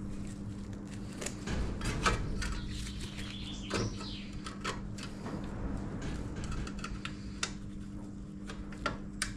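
Gloved hands handling small metal parts on a steel tractor dash panel: scattered light clicks and taps as a gauge and plate are set in place, over a steady low hum.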